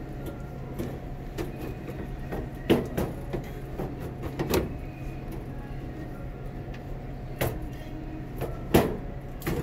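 Scattered knocks and clunks of a checkout conveyor belt and its motor roller being lifted and maneuvered out of their slots, over a steady low hum.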